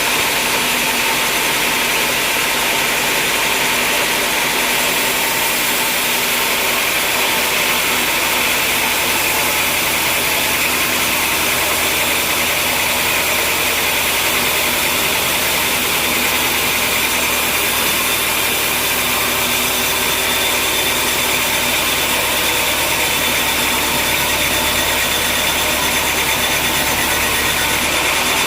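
Sawmill machinery running steadily, a loud, even mechanical noise with a high hiss, joined about six seconds in by a low hum that holds until near the end.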